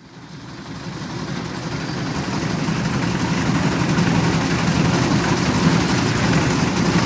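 Old diesel engine of a concrete mixer running steadily with a rapid low chugging. It fades up from silence over the first couple of seconds, then holds at an even level.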